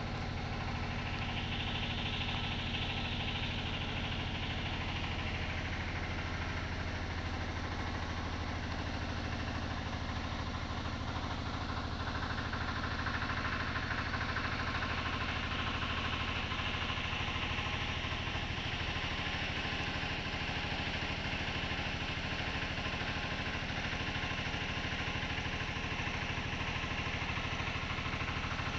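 Steady mechanical hum, like an engine running at idle, with a constant low drone underneath.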